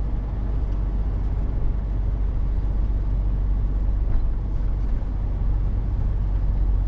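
HGV lorry's diesel engine and tyres heard from inside the cab while driving slowly: a steady low rumble.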